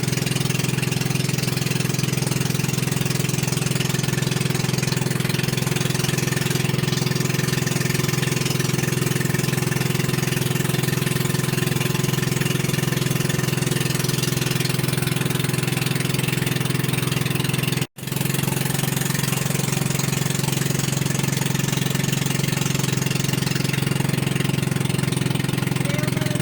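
Motorboat engine running steadily, a constant low hum over a wash of water and wind hiss. The sound cuts out for an instant about 18 seconds in, then resumes unchanged.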